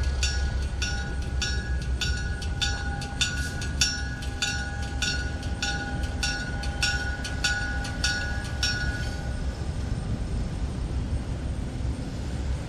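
Diesel switcher locomotive's bell ringing steadily at about two strokes a second as the engine approaches, stopping about nine seconds in. The locomotive's low engine rumble runs underneath.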